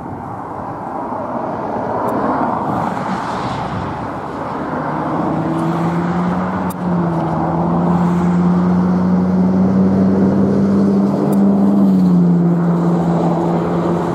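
Jet airliner landing, its engine noise swelling as it comes in. A strong steady hum enters about five seconds in and drops in pitch near the end as the aircraft passes.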